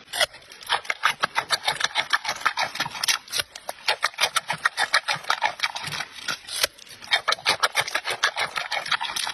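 Giant panda chewing raw carrot: rapid, crisp crunching, several crunches a second.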